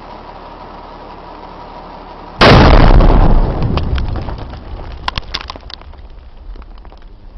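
An explosion on a rocky hillside: a sudden loud blast about two and a half seconds in that dies away over about a second, followed by scattered sharp clicks and patter of falling stones and debris.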